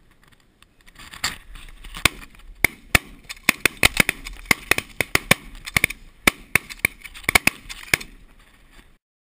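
Rapid volley of shotgun shots at a flock of geese passing overhead: about two dozen sharp reports in quick succession, starting about a second in and stopping near the end.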